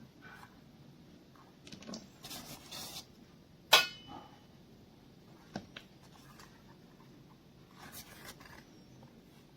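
Scattered handling noises: light clicks and brief rustles, with one sharp click a little under four seconds in.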